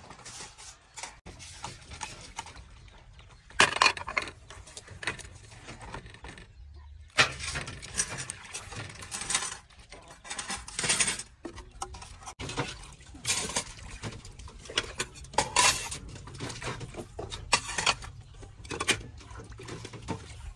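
Dishes being washed by hand in basins: plates, bowls and metal pots clinking and clattering against each other in irregular bursts, with hands working in soapy water.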